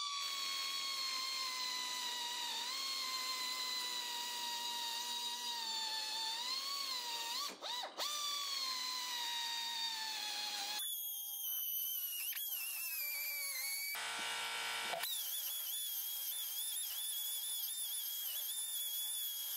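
Pneumatic die grinder with a carbide burr whining at high speed as it ports the wastegate hole in a turbo's exhaust housing. Its pitch sags each time the burr bites into the metal. It breaks off briefly a little before the halfway point, and the sound changes abruptly a few times in the second half.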